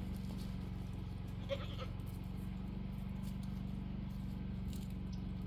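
A goat bleats once, briefly, about one and a half seconds in, over a steady low hum.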